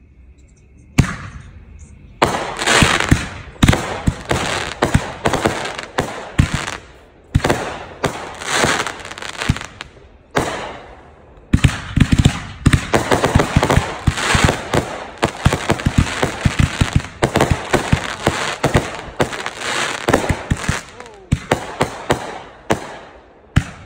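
Consumer aerial fireworks going off in a rapid barrage: repeated launch thumps and bursting bangs with crackling between them, starting about a second in, with a short lull about ten seconds in.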